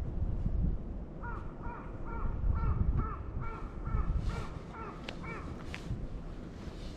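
Black kite calling: a fast series of short, arched, whistled notes, about three a second, over wind rumbling on the microphone.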